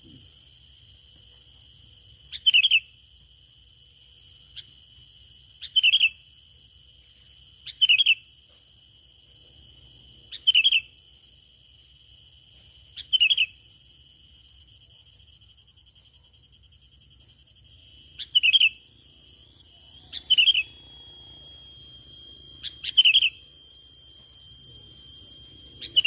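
Bird-lure call for the sooty-headed bulbul (kutilang): a short chirp repeated about every two and a half seconds over a steady high whistling tone. The chirps come closer together and more tones join from about twenty seconds in.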